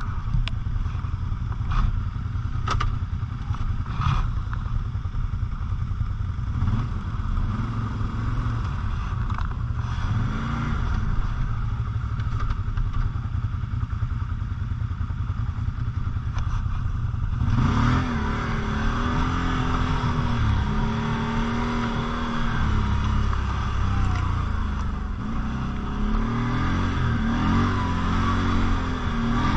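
Quad bike (ATV) engine running while riding off-road, with a few knocks and rattles in the first seconds. A little over halfway through the engine gets louder and its pitch rises and falls as it is revved harder.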